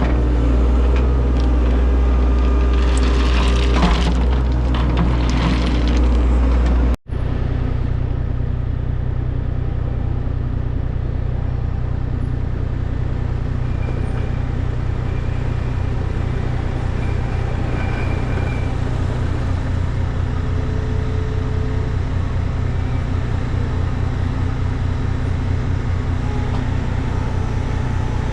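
Diesel engine of heavy earthmoving equipment running steadily, with some scraping and clatter in the first few seconds. About seven seconds in the sound cuts out for an instant and resumes as a steady engine drone with a fast low throb.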